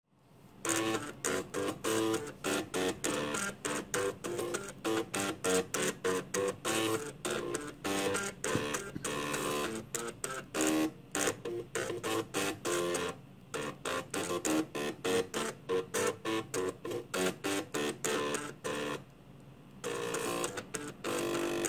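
Floppy drives driven by an Arduino Uno playing a MIDI tune, the stepper motors moving the read heads buzzing out a quick run of pitched notes. The tune breaks off briefly about 13 seconds in and for about a second just before the end.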